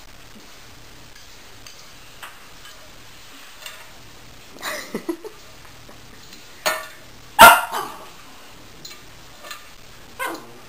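A small dog barking, a few short barks scattered through, the loudest about halfway.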